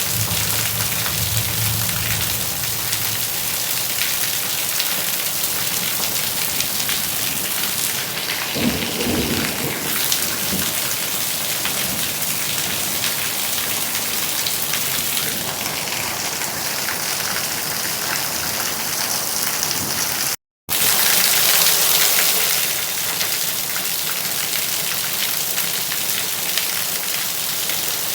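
Steady heavy rain falling, with a low rumble about nine seconds in. Near the twenty-second mark the sound cuts out for an instant, then comes back louder for a couple of seconds before settling.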